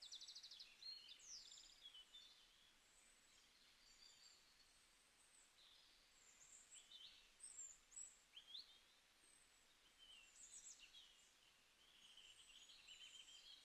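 Faint birdsong: small birds chirping and trilling over a soft background hiss, with quick rattling trills about half a second in and again near the end.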